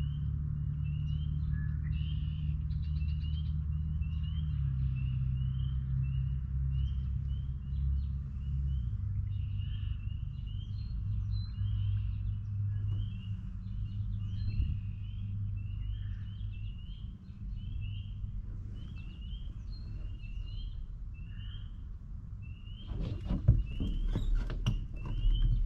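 A chorus of spring peepers: many short, rising, high peeps repeating over one another, several a second. A low steady hum runs underneath, and a few seconds before the end there is a burst of rustling and knocks.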